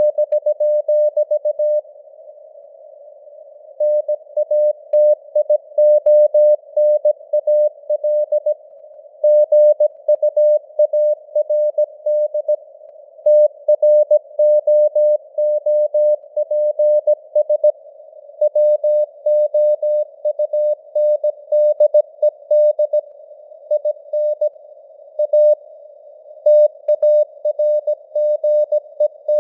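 Morse code (CW) sent at 17 words per minute: a single steady tone keyed into dots and dashes, with longer breaks between words. It sits in a narrow band of simulated radio receiver hiss, with the signal strength slowly fading up and down (QSB).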